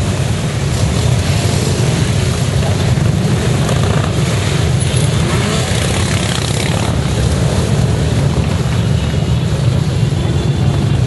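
Steady, loud low rumble of many motorcycle engines running together as a convoy rides past.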